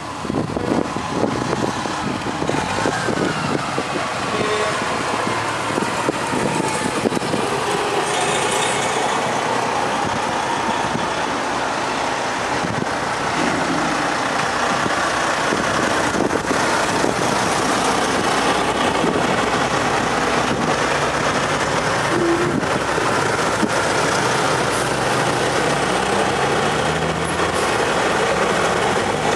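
A convoy of diesel prime movers without trailers driving past close by one after another, a steady mix of heavy engines and tyre noise, with passing cars near the end.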